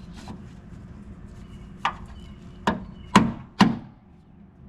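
Four sharp knocks, speeding up, as a tool strikes a stubborn, corroded battery terminal clamp to work it loose. The last two knocks are the loudest and ring briefly.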